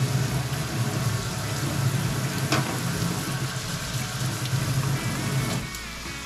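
Kitchen tap running into a stainless steel sink while hands are washed under the stream; the water stops shortly before the end. A frying pan sizzles underneath, and there is a single sharp click about two and a half seconds in.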